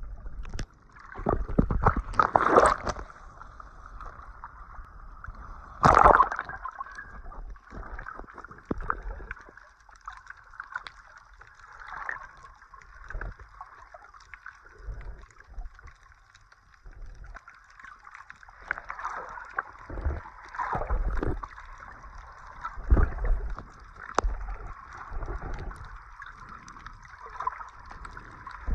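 Water sloshing and gurgling, with louder splashes about two and a half and six seconds in and again near the end, as heard by a snorkeller at the surface.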